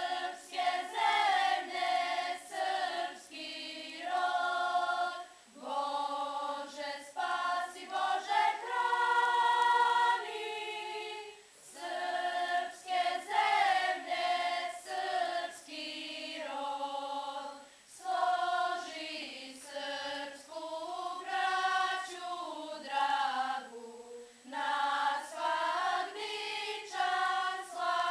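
Girls' school choir singing, in short phrases with brief breaks between them.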